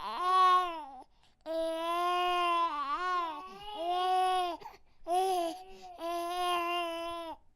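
A baby crying: about four long, held wails, each broken off by a short gasp for breath.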